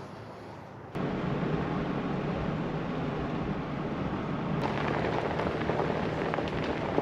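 Vehicle driving, a steady rumble of road noise with a low engine hum, starting abruptly about a second in; scattered small crackles join it in the second half.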